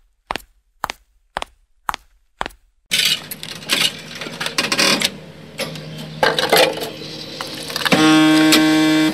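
Footsteps on a hard hallway floor, about two a second. About three seconds in, a coffee vending machine's buttons are pressed and the machine clicks and whirs, ending in a loud steady hum for the last second.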